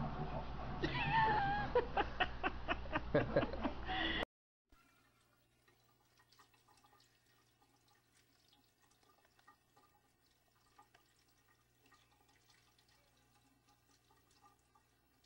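A cat lapping water from the neck of a plastic bottle: a quick run of wet clicks about four a second. After a sudden cut, only the faint trickle and drip of a thin tap stream running into a steel sink as a cat drinks from it.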